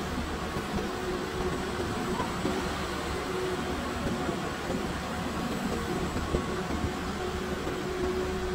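Steady hum and rumble of an electric cart in motion, with a faint steady whine.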